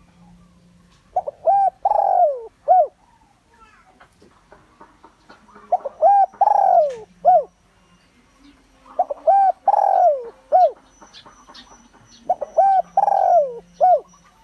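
Spotted dove (Streptopelia chinensis) cooing in four repeated phrases about three and a half seconds apart, each a couple of short coos, a longer falling coo and a short final coo.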